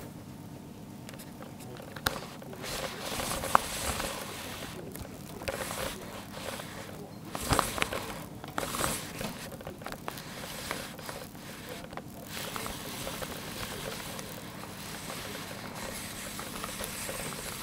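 Rustling and scraping handling noise from a handheld camera moved close to a carpeted floor, with a few sharp knocks; the loudest bursts come about halfway through.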